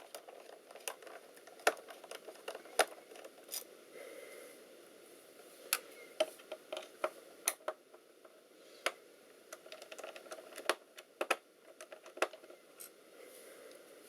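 Scattered light clicks and taps of a miniature screwdriver working screws out of a laptop's case and plastic parts being handled, about a dozen irregular sharp ticks over a faint room hiss.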